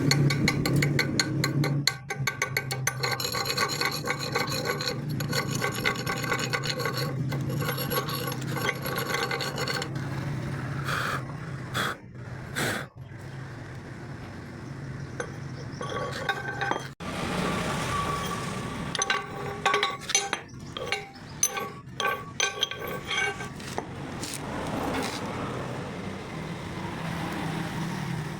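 Rasping, scraping metalwork on steel over a steady low hum: close, repeated strokes in the first third, then more broken, irregular scraping with sharp clicks.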